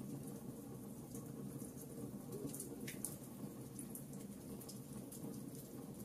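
Wood fire crackling: irregular sharp snaps and pops from the burning logs, several a second, over a steady low rumble.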